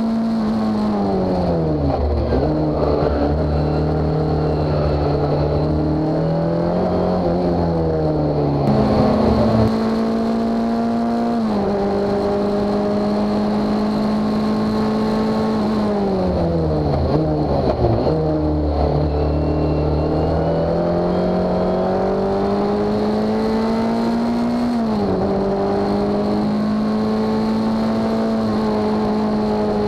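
Onboard sound of a Reynard SF87 Formula Ford 2000 race car's engine at racing speed. Twice the note falls steeply as the car slows into a corner, then it climbs back up through the gears, dropping sharply in pitch at each of three upshifts.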